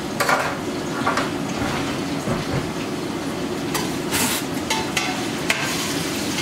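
Thinly sliced onions sizzling steadily as they fry in oil in a cooking pot, with a few short knocks and scrapes, the biggest about four seconds in.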